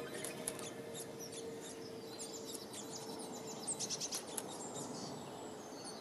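Faint, quick high chirps of small songbirds, scattered throughout and bunched into a brief flurry a little past the middle.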